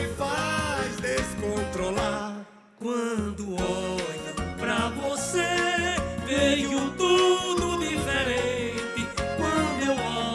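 Live band music playing a melodic passage between sung verses of a folk-style song. The sound briefly drops almost out about two and a half seconds in, then resumes.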